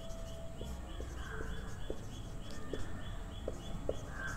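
Faint background chirping, short high notes repeating evenly about four times a second, with the light squeaks of a marker writing on a whiteboard.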